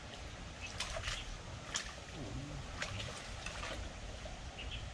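Stream water splashing and trickling as a hooked fish is played in toward the bank, with several short sharp ticks over a low wind rumble on the microphone.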